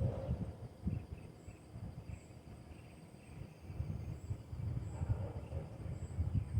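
Outdoor ambience: a low, surging rumble with faint, short, high-pitched chirps repeating about once a second.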